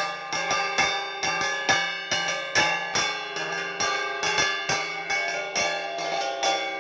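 Small flat bell-metal hand gongs (ghanta) struck with wooden mallets in a quick steady beat, about three strikes a second. Their metallic ringing overlaps into a continuous clang.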